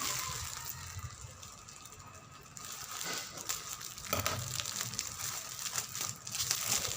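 Packaging crinkling and rustling as it is pulled at by hand to get it open, quieter for a couple of seconds and then busier again.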